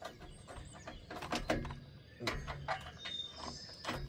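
Hand tools working on a steel exhaust pipe clamp: a run of irregular metallic clicks and knocks as the fastener is wrenched loose.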